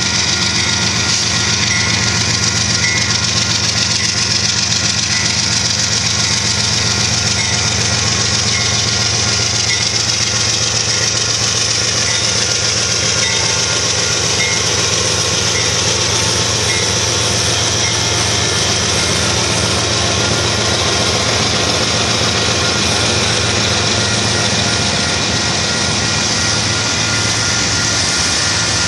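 Several diesel-electric freight locomotives of a Union Pacific manifest train running past at close range, their engines droning steadily over the rumble of wheels on rail, with a grade-crossing bell dinging regularly.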